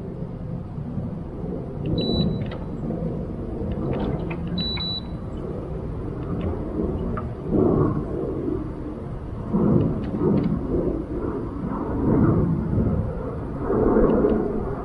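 Strong wind buffeting the microphone in uneven gusts, a low rumbling rush that swells several times. Two short, high electronic beeps sound about two seconds and four and a half seconds in.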